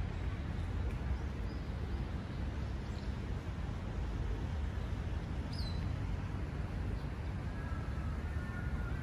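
Steady outdoor background rumble and hiss, with a few short high bird chirps and, near the end, a crow beginning to caw.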